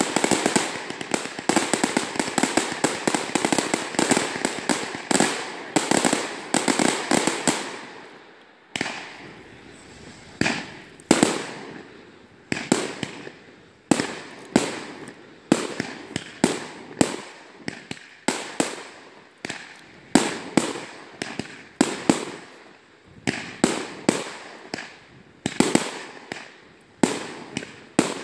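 Fireworks going off: a dense, rapid string of bangs for about eight seconds, then separate sharp bangs coming about two a second, each trailing off.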